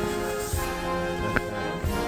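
Orchestral background music with held brass-like tones over a low beat, and a short click about two-thirds of the way in.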